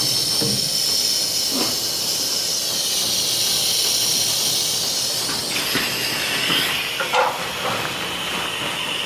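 A steady hiss of escaping air. It shifts in pitch about five and a half seconds in, with a few short knocks, the sharpest about seven seconds in.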